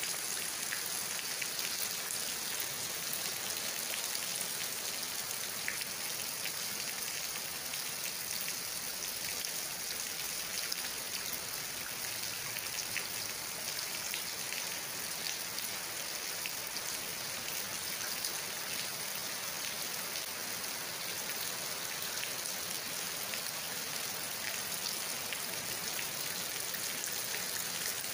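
Steady rain falling on wet paving and plants: an even hiss with many individual drops ticking through it.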